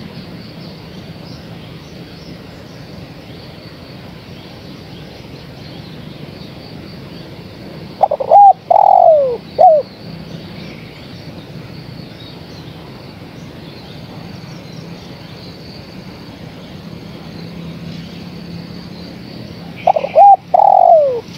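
Spotted dove calling twice, about twelve seconds apart. Each call is a short phrase of three or four coos, the middle one longer and falling in pitch. It is the female's call to males, used as a lure call.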